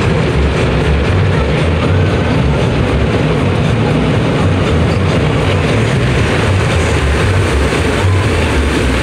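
Automatic car wash heard from inside the car's cabin: spinning cloth brushes and water spray working over the windshield and body. It is a loud, steady rushing with an uneven low rumble beneath it.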